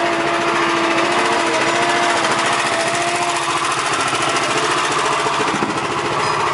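Lobster boat's engine running steadily with a fast, even chugging pulse. A steady whine rides over it for the first half and fades out about three and a half seconds in.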